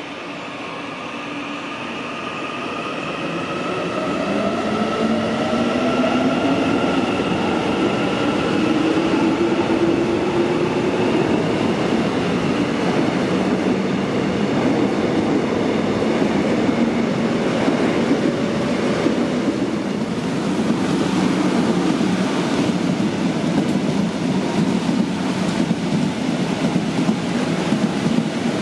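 Seoul subway commuter train pulling out of a station platform. A whine rises in pitch as it gathers speed over the first several seconds, then gives way to the steady running noise of the cars passing.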